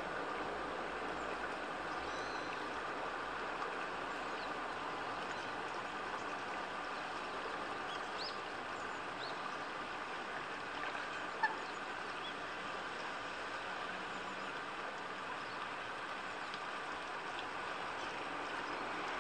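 Steady outdoor background rush with a few faint, short, high bird chirps, and one brief sharp call or click about halfway through.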